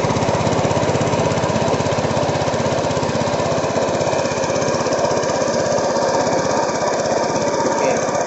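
Small engine running steadily at a constant speed, close by, with a fast, even putter.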